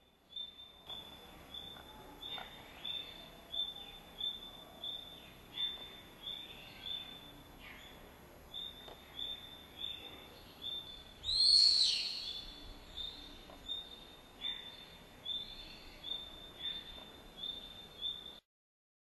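Birds calling: one short high note repeated evenly about one and a half times a second, with other chirps over it and one louder call about eleven and a half seconds in. It cuts off abruptly near the end.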